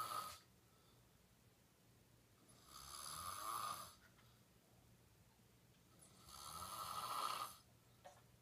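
A girl snoring in her sleep, one rasping snore every three and a half seconds or so. The tail of one snore comes at the very start, and two full snores come about three and seven seconds in.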